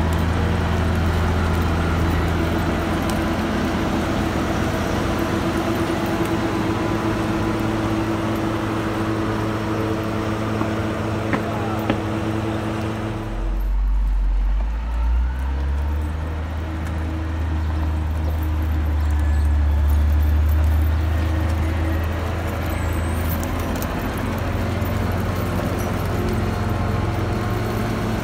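Komatsu GD675 motor grader's diesel engine running steadily under load while its blade pushes snow. About halfway through the sound changes abruptly, then the engine hum returns and swells briefly.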